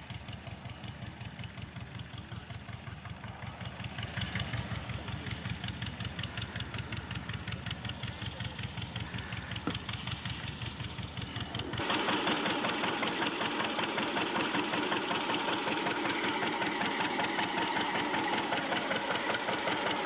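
Two-cylinder John Deere tractor engine running with an even, rhythmic beat while pulling a rice-harvesting binder through the field. About twelve seconds in the sound becomes louder and fuller.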